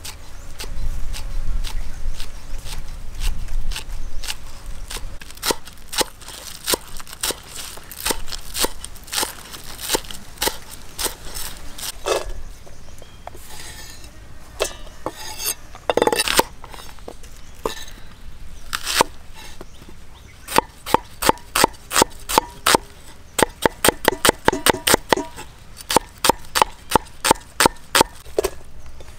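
Cleaver chopping spring onions and then a red onion on a round wooden chopping board: a long series of sharp knife strikes on the wood, with a short break about halfway and a fast, even run of chops near the end, about four a second.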